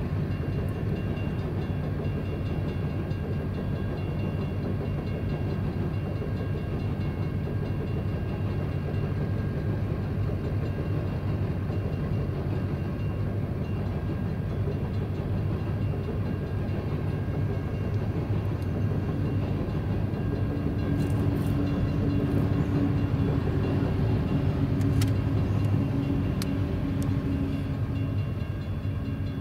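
Coal train of hopper cars rolling past at a steady pace: a continuous low rumble of wheels on rail, heard from inside a car. In the last ten seconds a deeper humming note joins in and the sound grows slightly louder.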